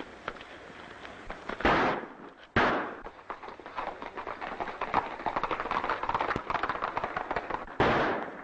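Three gunshots from an old film soundtrack: two about a second apart near the start and one near the end, each ringing off briefly. A rapid, steady clatter of quick clicks runs between them.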